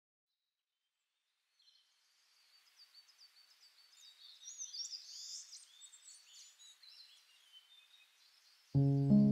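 Near silence, then many small birds chirping fade in about two seconds in, a lively chorus of short high calls that later thins out. Background music starts near the end.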